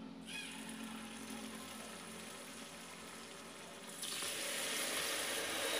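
Hot oil sizzling in a frying pan as batter-coated potato pieces fry, growing louder about four seconds in as another piece goes into the oil.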